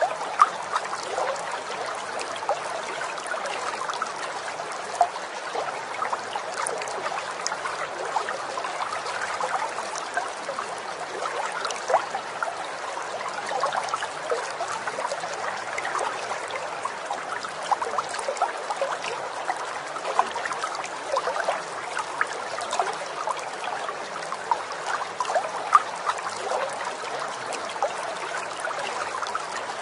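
Steady trickling and babbling of running water, like a small stream, with many small splashes and drips through it.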